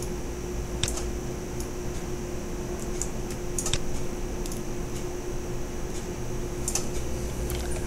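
About half a dozen separate clicks of a computer mouse and keyboard, over a steady background hum.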